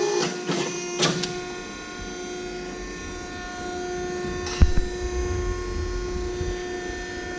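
Wysong 60-ton hydraulic press brake running, its hydraulic pump giving a steady hum. A few clicks come in the first second, then a sharp knock about four and a half seconds in, followed by a low rumble for a few seconds.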